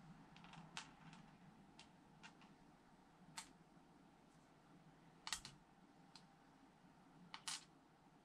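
Small plastic LEGO pieces clicking and tapping as they are picked up and fitted together: a scattering of sharp, irregular clicks, the loudest a double click about five seconds in and another near the end.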